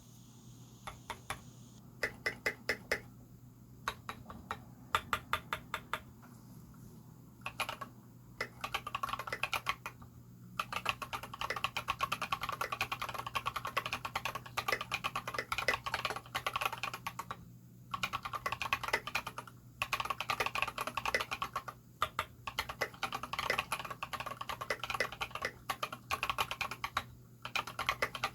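ALF3 mechanical keyboard with Holy Panda tactile switches and SA keycaps being typed on. A few short runs of keystrokes, then fast, continuous typing from about eight seconds in, broken by brief pauses.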